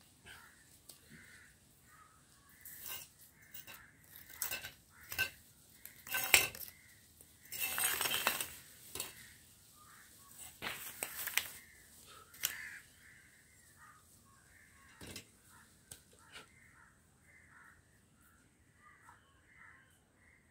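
Sharp clinks and knocks of pipe fittings and hand tools being handled, with one longer scrape in the middle; the clatter dies down in the second half. Crows caw repeatedly in the background.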